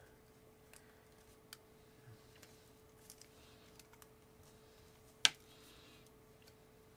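Thin metal pick clicking and scraping on a small plastic LiPo balance plug housing while pressing down a pin's retention tab: a few faint ticks, and one sharp, much louder click a little over five seconds in.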